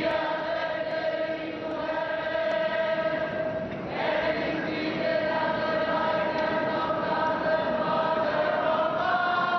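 A large crowd singing together in long held notes. The tune moves to a new note about four seconds in and again near the end.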